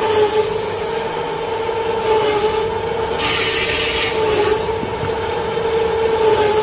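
Toilet-paper log saw machine running with a steady hum. About three seconds in, a rasping hiss lasting a second and a half as the saw blade cuts through a paper log.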